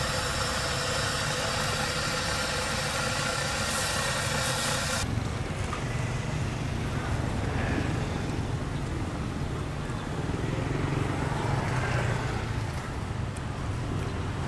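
Hot frying oil sizzling in a wok, ending abruptly about five seconds in. Under it, a steady low rumble like an idling engine continues throughout.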